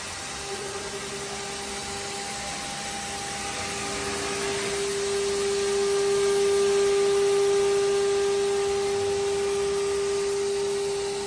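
Spindle of a 4-axis CNC wood router running with a steady high-pitched whine over a hiss as it carves a curved mould into a laminated plywood block. It grows louder toward the middle and eases off near the end.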